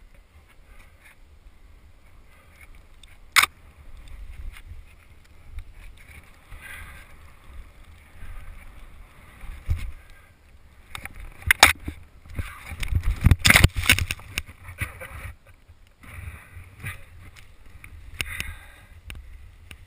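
A person breathing heavily from exertion, over a steady low rumble of wind buffeting the microphone. There is a sharp click a few seconds in, and loud rushing, scraping noise comes in bursts around the middle.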